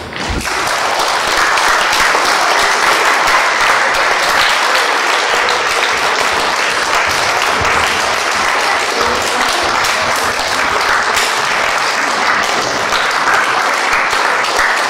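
Audience applauding, breaking out suddenly just after the start and then keeping up at an even level.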